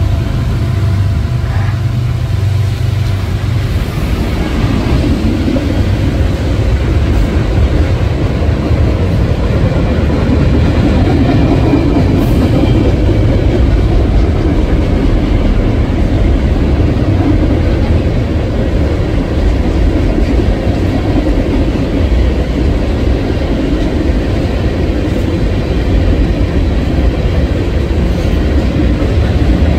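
Freight cars of a manifest train rolling past: a steady, loud rumble of steel wheels on rail with clickety-clack over the joints. A steady locomotive engine hum fades out in the first few seconds as the lead units move away.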